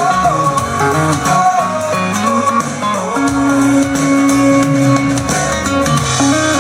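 Pop song's instrumental break, a guitar melody over bass, played through a Sony SS-CN550H two-way center speaker.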